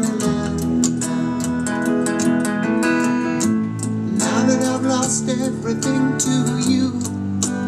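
Background music: a guitar-led song with a steady beat.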